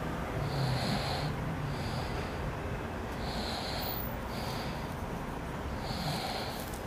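Heavy breathing close to the microphone, a steady rhythm of in-and-out breaths about one every second and a half, over low street noise. A vehicle's low hum fades out about a second in.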